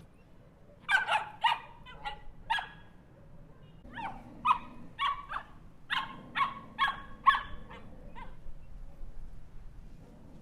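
Small dog barking in short, sharp, high barks: a quick run of about five starting a second in, then after a short pause a longer run of about ten.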